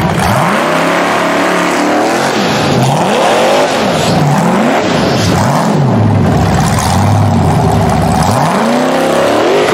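Rock bouncer buggy's engine revving hard up and down again and again as it climbs over rocks, its pitch rising and falling in about half a dozen quick swells.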